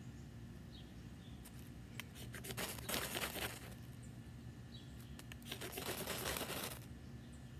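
A knife blade scraping down a ferrocerium rod, throwing sparks onto dry wood shavings to light them. There are a few short strikes about a second and a half in, then two long harsh scrapes, one around three seconds and one around six.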